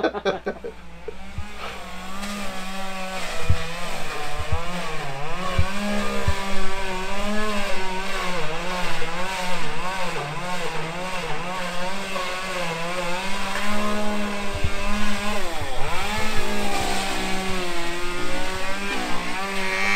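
Electric hair clippers buzzing while cutting hair, the pitch wavering up and down as the blades meet the hair, with a brief dip about three-quarters of the way through and a few light clicks early on.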